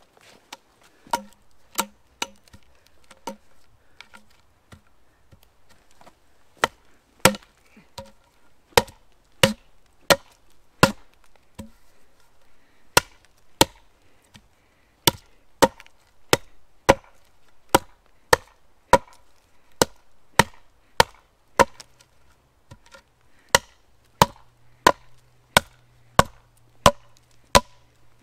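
Hatchet chopping into the end of a green wooden pole stood on a tree stump, shaping it to a point: a steady run of sharp strokes, about one and a half a second, beginning about a second in.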